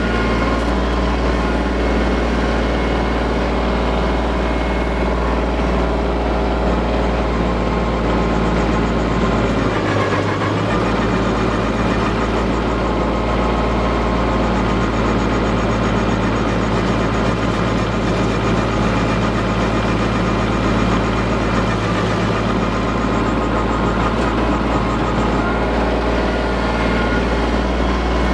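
Compact tractor engine running steadily under load, driving a Woodland Mills WG24 PTO stump grinder's 24-inch cutting wheel as it grinds into a stump. The low engine note shifts briefly about ten seconds in.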